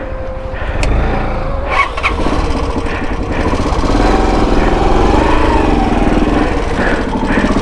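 Dirt bike engine running, revving up and easing off about five seconds in. A few short clicks come in the first two seconds.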